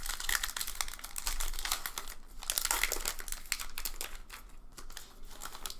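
A Heritage baseball card pack's wrapper being torn open and crinkled in the hands, a dense crackling that thins out near the end.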